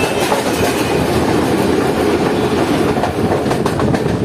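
Pak Business Express passenger train running along the line: steady running noise of steel wheels on the rails, with a few light knocks over rail joints.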